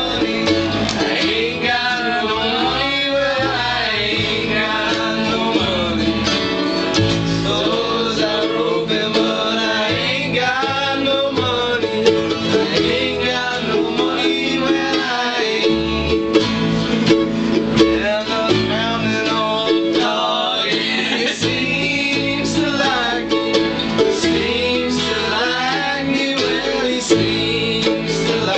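Two acoustic steel-string guitars strummed together with voices singing along, in an informal, unamplified jam.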